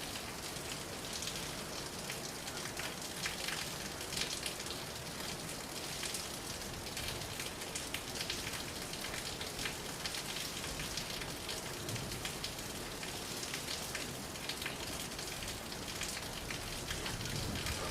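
Steady rain falling, a constant hiss thick with the patter of individual drops striking a surface.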